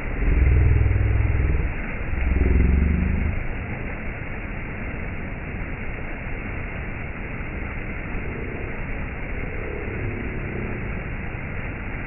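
Stream water rushing steadily over shallow rock ledges. In the first three seconds or so a louder low rumble with a wavering drone rises over the water, and a fainter one comes back about eight to eleven seconds in.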